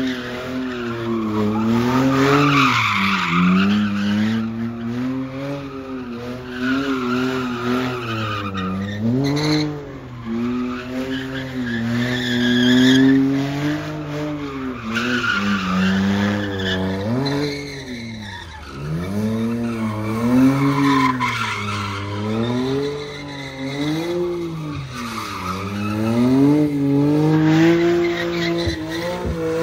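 A car drifting: its engine revs up and down again and again, every second or two, while the tyres squeal and skid.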